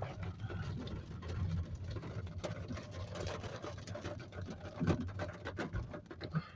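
Raindrops hitting the phone and car in quick, irregular ticks, over a steady low hum from the car.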